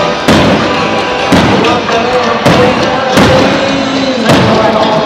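Fireworks shells bursting with five sharp bangs, about one a second, each trailing off in an echo. Music plays under them.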